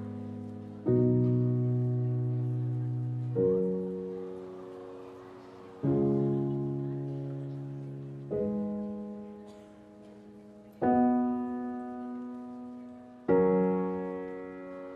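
Slow, soft piano music: a chord struck about every two and a half seconds, six times, each left to ring and fade before the next.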